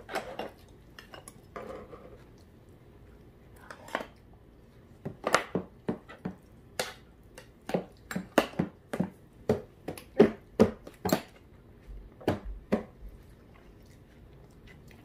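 Metal spoons clinking and scraping against stainless-steel bowls as food is scooped up. A few scattered clinks at first, then a quick run of them through the middle, dying away near the end.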